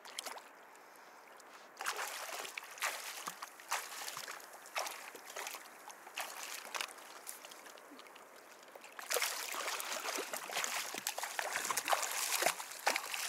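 A hooked barracouta thrashing at the surface beside a kayak, shaking a small blue cod on the same rig and throwing water in repeated sharp splashes. The splashing grows denser and louder over the last few seconds as the fish comes alongside.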